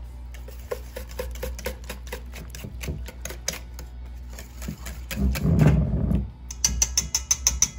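Wire whisk beating thick chocolate batter in a stainless steel bowl: irregular clinks and ticks of the wires against the metal, speeding up to about ten quick ticks a second near the end. A louder low noise lasts about a second, around five seconds in.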